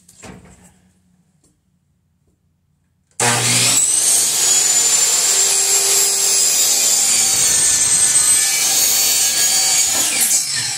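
Electric power saw starting up about three seconds in with a rising whine, then cutting through a wooden board for about six seconds, and winding down near the end.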